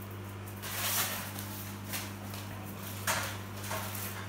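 Rottweiler puppy's paper rustling: several short crinkles of newspaper as the puppy carries and shakes it, with paws pattering on the floor, over a steady low hum.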